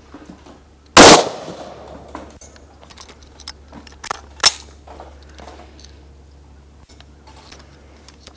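A single 5.56 mm shot from a Colt M4 carbine about a second in, followed by a long fading echo. This is a cartridge that had failed to fire going off when struck again. A few short, sharp clicks follow about three seconds later.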